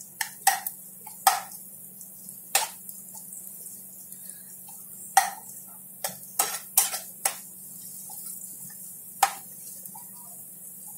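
A steel spoon stirring sliced nuts and dates in ghee in a frying pan, with irregular clicks and taps of the spoon against the pan. A steady low hum runs underneath.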